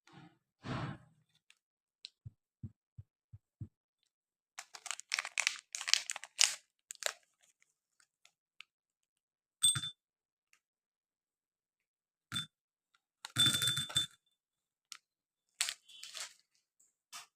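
Gems chocolate pack's wrapper being torn open and crinkled in short bursts of crackling and rustling, with a few soft knocks and clicks in between.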